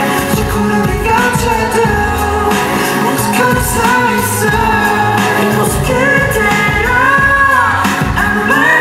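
Live pop music: a sung vocal melody with long gliding notes over a steady beat, played loud through a concert sound system.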